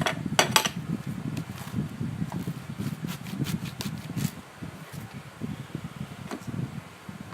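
Sticky slime being squished and stretched by hand, giving irregular sharp clicks and pops over a low, uneven rustle.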